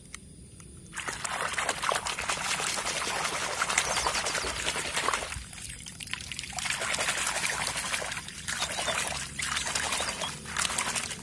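Shallow puddle water splashing as a hand swishes a small toy cement mixer truck back and forth through it. The splashing starts about a second in and comes in two spells, with a short lull about five seconds in.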